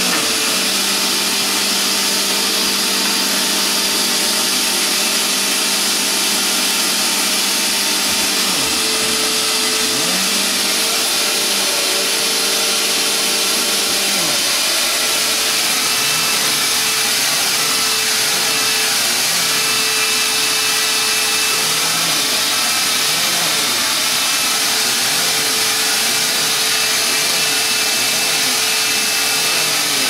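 Upright vacuum cleaner running over carpet, a steady loud hum and rush of air. Its pitch dips briefly a few times in the first half, and later the hum wavers up and down in a slow rhythm as it is pushed back and forth.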